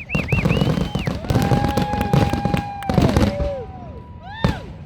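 Fireworks finale barrage: a rapid run of bangs and crackling with whistling tones rising and falling over it. It thins out after about three seconds, leaving one last sharp bang near the end.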